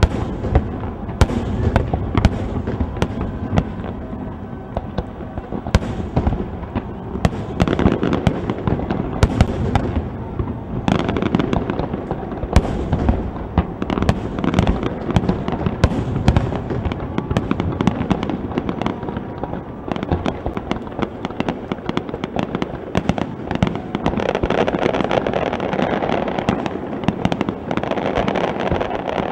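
Aerial fireworks display: many shells bursting in irregular quick succession, sharp bangs over a continuous wash of noise.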